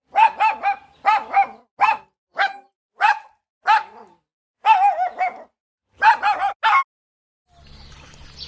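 A dog barking repeatedly in quick runs of short barks, stopping shortly before the end. A low hum with faint background noise starts near the end.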